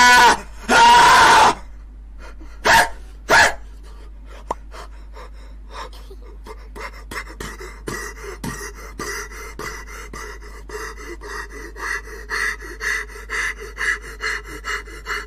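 A young man screaming loudly twice, then two short sharp yelps, followed by quick rhythmic panting gasps, about two to three a second, that grow louder toward the end.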